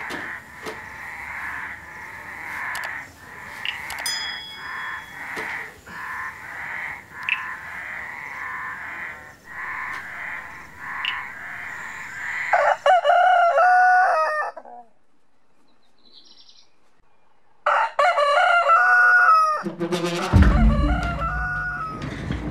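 A steady high-pitched animal chorus for the first twelve seconds or so, then a rooster crowing twice, about thirteen and eighteen seconds in, with a brief quiet gap between. Music with a deep bass comes in near the end.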